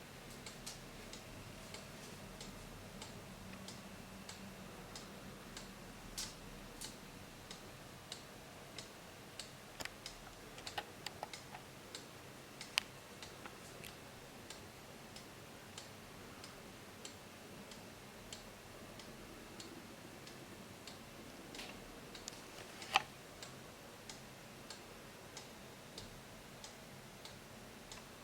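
Mechanical movement of a 1950s Warmink wall clock ticking steadily, a little over one tick a second. Twice there is a sharper, louder click.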